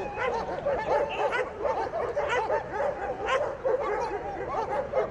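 German shepherd dog whining and yelping in an unbroken run of short cries that rise and fall in pitch, several a second.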